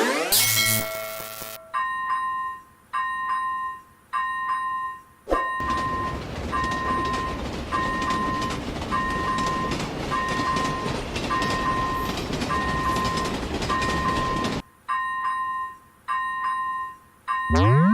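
Railroad crossing warning bell clanging in a steady repeating two-tone ding, the sound of a crossing with its barrier down. About five seconds in, a passing train's rumble starts and runs for about nine seconds, then cuts off suddenly while the bell keeps ringing. A short cartoon chime plays at the very start.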